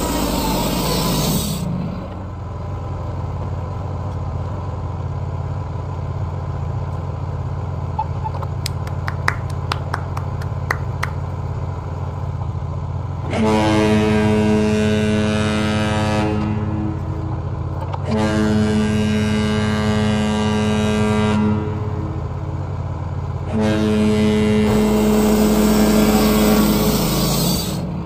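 Wood-Mizer LT15 portable band sawmill running, its engine humming steadily throughout. About halfway in, a loud steady-pitched whine from the saw comes in three times, each lasting three to four seconds. A few light clicks come a third of the way in.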